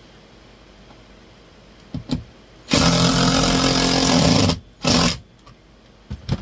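Power drill running steadily for about two seconds, driving a screw into the wall, then a short second burst, with a few clicks and knocks before and after.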